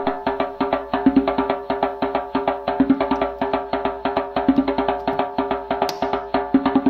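Background music with a fast, steady percussive beat of wood-block-like clicks over a pitched accompaniment.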